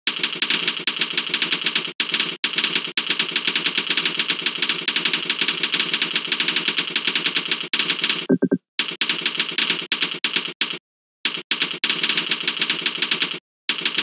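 Computer keyboard being typed on quickly, its keys clicking in fast continuous runs that stop briefly a few times.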